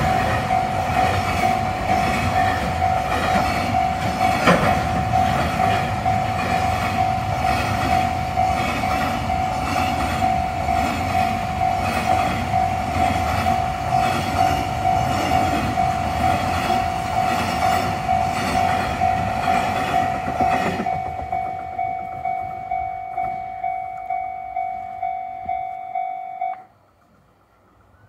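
A freight train of container wagons rolls past over the rails, the wheels clacking at the joints, while a Japanese level-crossing bell rings with a steady electronic tone. The train's sound dies away about three-quarters of the way through, and the bell rings alone at about two strikes a second for a few more seconds before it cuts off suddenly, as the crossing clears.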